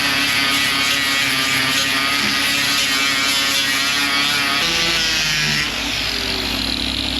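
Power grinder running against fiberglass, its whine wavering under load. The grinding eases off about five and a half seconds in.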